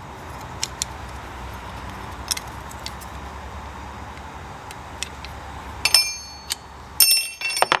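Metal parts and a hand tool clinking against each other while a mower's throttle lever assembly is tightened: a few light ticks, then sharp ringing metallic clinks about six seconds in and a quick run of them near the end, over a steady background hiss.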